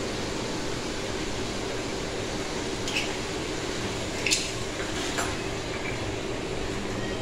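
Metal spoon stirring through chicken and vegetables in a steel wok, with a few sharp clinks against the pan about three to five seconds in, over a steady background hiss.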